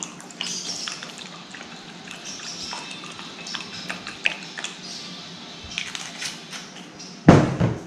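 Kitchen handling sounds as rum and sugar are worked into a bowl of raisins: scattered light clicks and a soft pouring hiss over a steady low hum, with one loud thump near the end.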